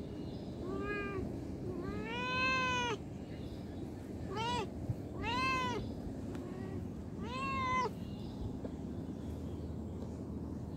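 A cat meowing five times over about eight seconds, each meow rising and then falling in pitch, the second one the longest, over steady background noise.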